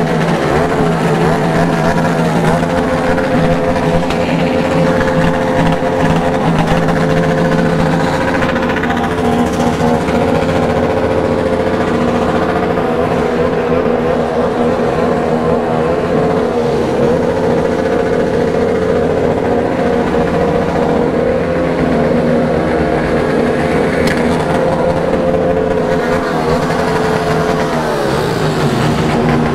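Many motorcycle engines idling and revving together in a large crowd of bikes. Several steady engine notes overlap with others that rise and fall, and one falls away near the end.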